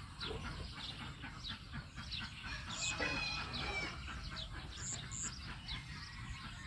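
Birds calling in the open: many short, falling chirps, with one louder, fuller call about three seconds in.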